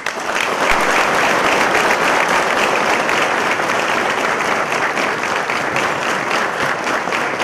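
A hall audience applauding steadily, clapping for a choir's song that has just ended.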